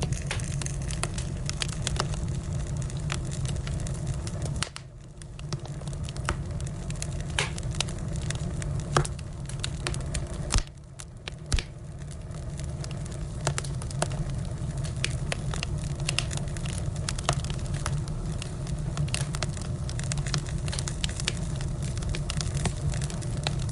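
Firewood burning, with frequent sharp crackles and pops over a steady low rumble. The sound dips briefly twice, about five seconds in and again around eleven seconds.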